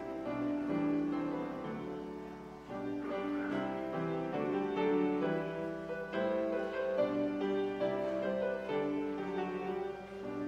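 Slow instrumental piano music, a string of held chords and melody notes changing at an unhurried pace.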